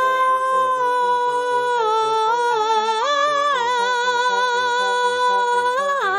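Children's song intro: a wordless vocal melody sung on long held 'aah' notes that step down and back up, over a soft repeating bass line.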